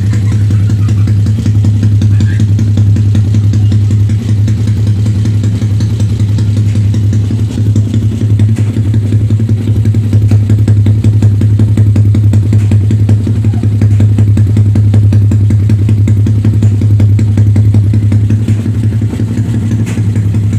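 Yamaha Sniper 135 single-cylinder four-stroke engine running steadily at low revs through an open LeoVince exhaust pipe, a loud, full, crisp exhaust note with a little more volume in the middle stretch.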